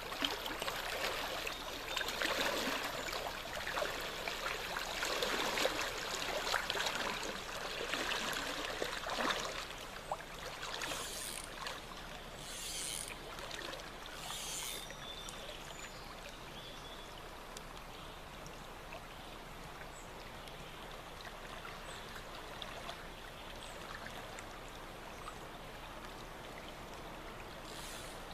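Creek water running steadily, louder and rougher for about the first ten seconds, with three short high hisses near the middle before it settles to a quieter, even flow.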